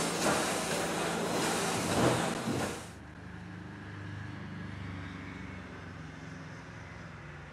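Steam hissing loudly from the steam tank locomotive 93.1420, with a few louder swells. It cuts off abruptly about three seconds in, leaving a much quieter low rumble.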